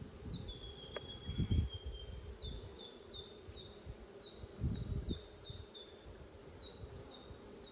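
Honeybees buzzing around an open nucleus hive, a steady hum, with a string of short high chirps repeating in the background. Two low bumps, about a second and a half in and again near five seconds, stand out as the loudest sounds.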